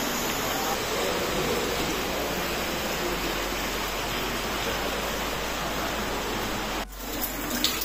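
Steady rush of falling water, with a brief drop about seven seconds in.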